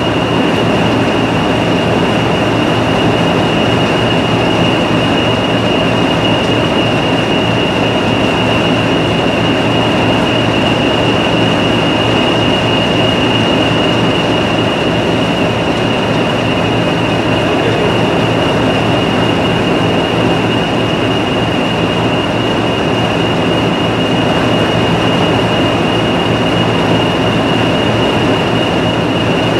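English Electric Class 40 diesel locomotive No. 345 idling, a steady high turbocharger whistle over the deep, even rumble of its diesel engine.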